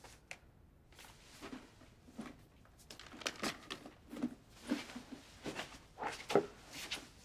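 Rustling and light knocks as a leather handbag is handled. From about the middle come footsteps across a wooden floor, roughly two a second.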